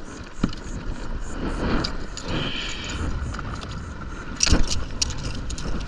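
Thumps and knocks against a kayak as a just-landed redfish is handled, the loudest cluster about four and a half seconds in. Underneath is a steady low rumble.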